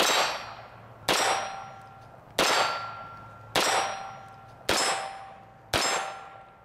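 Walther P22 .22 rimfire pistol fired six times at a steady pace of about one shot a second, each shot followed by the ringing clang of a hit steel target.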